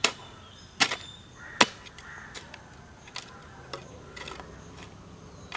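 A digging hoe chopping into soil in a pit: three sharp strikes in the first two seconds, the third the loudest, then several lighter strikes.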